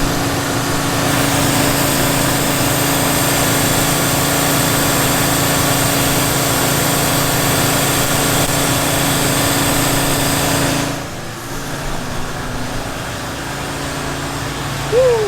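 Gas-engine pressure washer running with the wand spraying a hissing jet of water onto concrete. About 11 seconds in the spray stops, leaving the engine running more quietly.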